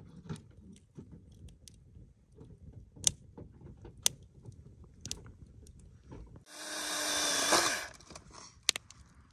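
A campfire crackling with scattered sharp pops. Then a cordless power saw runs in one burst of about a second and a half, its motor pitch dipping as it cuts into firewood.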